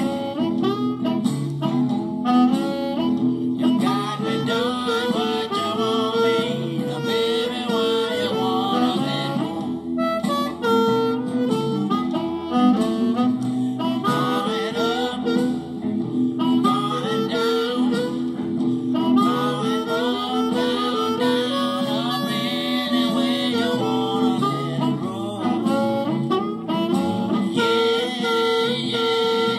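Hohner diatonic blues harmonica played cupped into a Shure Green Bullet microphone and amplified through a Boss Katana Mini amp on its crunch setting, giving an overdriven tone, with bending, wailing phrases. Underneath runs a steady blues backing with guitar.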